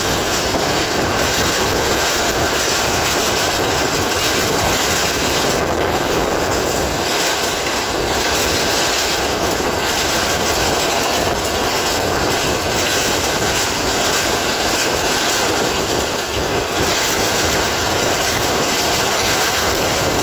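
Passenger train running along the line, heard at an open carriage window: a steady, loud rushing of wheels on the rails, the carriage and air moving past.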